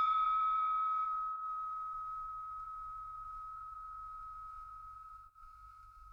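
The lingering ring of a ship's bell after a single strike: one steady, clear tone slowly fading away, its brighter overtones dying out within the first second.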